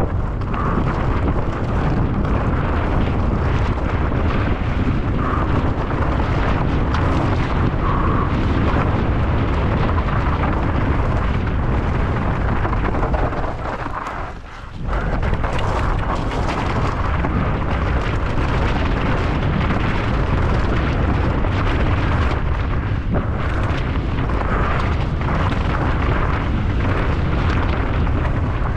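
Heavy wind rush and rumble buffeting a mountain bike rider's camera microphone at speed on a downhill race descent, with a brief lull about halfway through.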